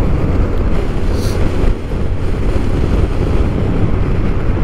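Steady low rumble of wind buffeting the microphone of a rider on a moving Honda XRE 300 motorcycle.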